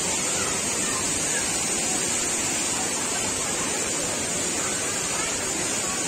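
Waterfall rushing: a steady, unbroken hiss of falling water.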